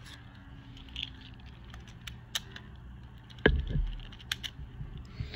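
Small Beyblade Micros spinning tops battling in a plastic stadium: scattered light clicks and clacks as they hit each other and the stadium walls, with a louder knock about three and a half seconds in.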